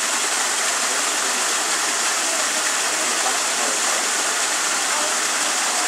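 Steady rush of running water pouring into a pond.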